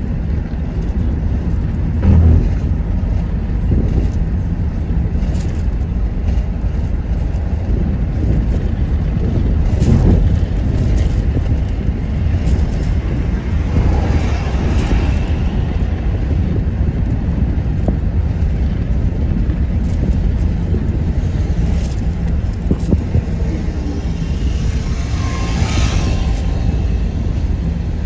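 Steady low rumble of a moving vehicle, with scattered knocks and rattles, the loudest about two and ten seconds in, and a brief hissing swell near the end.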